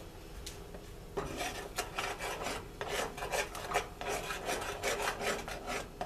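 A metal utensil stirring and scraping around the bottom of a saucepan of melting butter, sugar, milk and chocolate stout, in quick repeated rasping strokes that start about a second in: the gritty scrape of sugar not yet dissolved.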